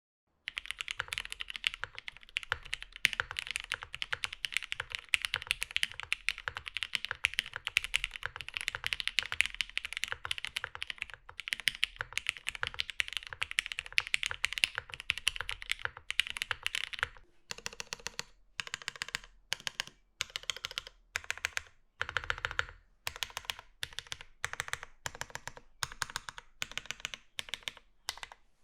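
Mode Sonnet 75% custom mechanical keyboard with lubed Cherry MX Black linear switches and GMK keycaps, typed on steadily in its isolated top-mount setup. From about seventeen seconds in, the typing comes in short bursts with brief pauses.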